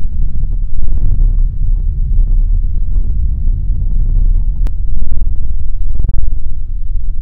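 A loud, deep, continuous rumble, with a single sharp click about two-thirds of the way through.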